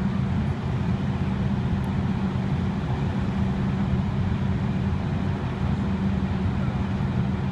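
A steady low engine drone, as of a motor vehicle running at a constant speed.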